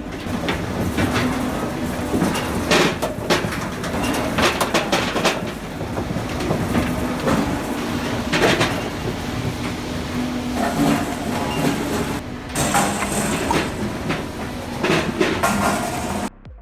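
Automatic firewood processor running, with a steady hydraulic and engine hum under irregular clanks and knocks as logs are fed, cut and split. The hum shifts in pitch about two thirds of the way through, and the sound cuts off suddenly just before the end.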